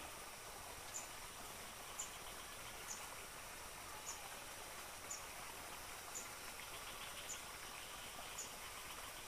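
Faint rural outdoor ambience: a short, high chirp repeats about once a second over a soft background of insect buzzing.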